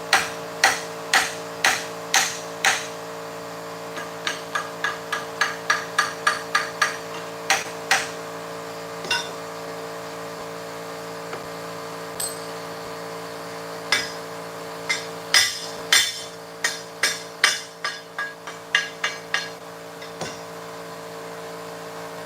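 Chipping hammer knocking slag off fresh welds: sharp metal-on-metal strikes in runs of about two to three a second, with pauses between the runs, over a steady hum.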